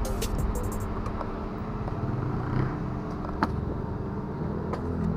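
A steady low motor hum, with scattered light clicks and one sharp click about three and a half seconds in.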